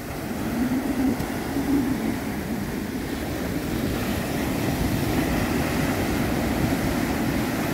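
Wind buffeting the microphone over steady surf from waves breaking on the beach.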